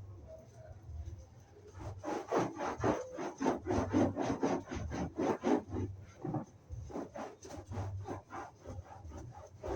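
A sponge wiping a sofa seat in quick back-and-forth rubbing strokes, about four a second. The strokes are loudest in the middle and grow softer near the end.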